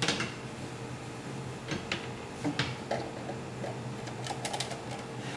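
Scattered small clicks and light knocks as a rice cooker's power cord and plug are handled and pushed into a wall socket, with a faint steady hum underneath.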